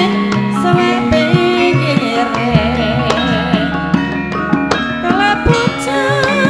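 Javanese gamelan music accompanying a tayub dance: a woman's singing voice wavers with vibrato over sustained struck tones and hand-drum strokes, and a deep low tone sets in about halfway through.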